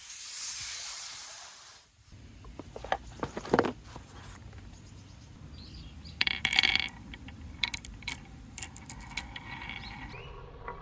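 A hiss swells and fades over the first two seconds. Then marbles roll and rattle along a wooden marble run, with many sharp clicks and a bright ringing clatter about six seconds in.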